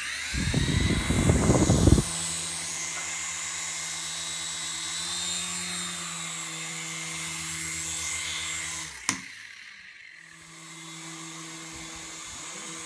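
Indoor remote-control toy helicopter flying: its small electric motor whines and the rotor hums steadily, with a loud low rumbling for the first two seconds. About nine seconds in there is a sharp knock; the motor drops away, then hums again a second or so later.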